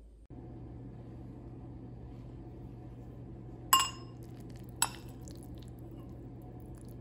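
Metal fork clinking twice against a glass bowl, about a second apart, each strike ringing briefly, the first the louder.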